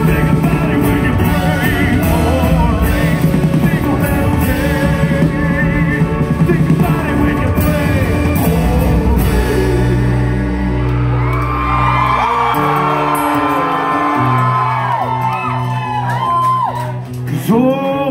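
Live country band with acoustic guitar, bass and drums playing an instrumental stretch of the song. About halfway through the drums drop out, leaving long held bass notes under sliding, wavering high lines.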